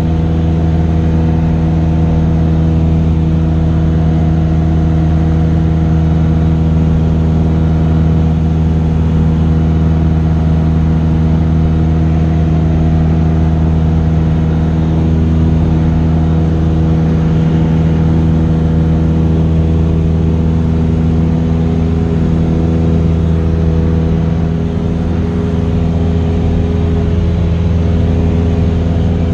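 Cessna 172S's four-cylinder Lycoming IO-360 engine and propeller droning steadily in flight, heard from inside the cabin, holding an even pitch throughout.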